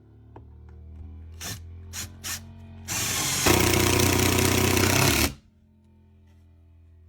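Drill briefly triggered three times, then run for about two and a half seconds, getting louder about half a second into the run, before it stops suddenly.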